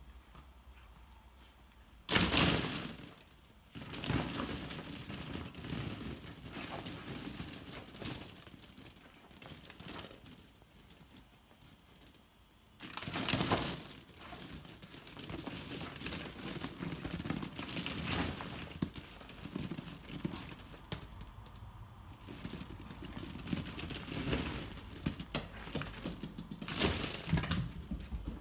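Hollow plastic ball-pit balls clattering and rattling against each other as a Cardigan Welsh Corgi jumps into the pit and digs and pushes through them. There are louder crashes about two seconds in and again around thirteen seconds, with steady rattling between and after.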